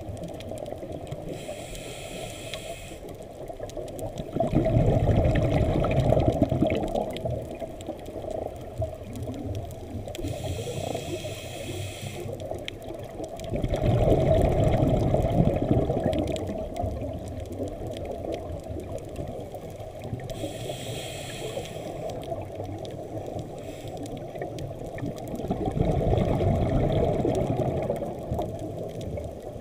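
Scuba diver breathing through a regulator underwater: three breath cycles about ten seconds apart, each a short hiss of inhalation followed a couple of seconds later by a longer, louder bubbling of exhaled air.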